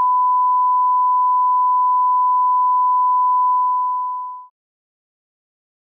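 Steady 1 kHz sine reference tone, the test tone that goes with SMPTE colour bars. It is one pure pitch and fades out about four seconds in.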